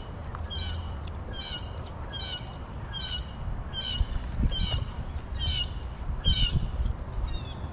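A bird calling over and over, about nine short, harsh calls, each falling in pitch, roughly one every 0.8 seconds. Low rumble and a few low bumps sit underneath, louder in the middle.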